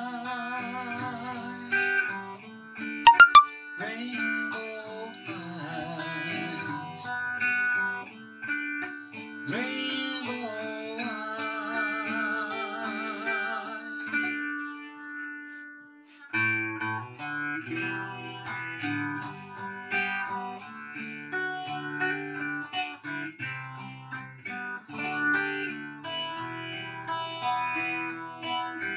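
Acoustic-electric guitar played fingerstyle in an instrumental passage of a slow ballad, with a wavering held melody line above it for the first half that stops about fourteen seconds in. After a short lull the guitar carries on alone with low bass notes under the picked chords. A sharp knock sounds about three seconds in.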